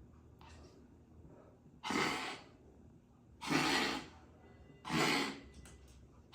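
A dog with grade-four tracheal collapse making three loud, harsh, rasping breathing sounds about a second and a half apart, with a fainter one just before. The airway noise is the sign of the collapsing trachea.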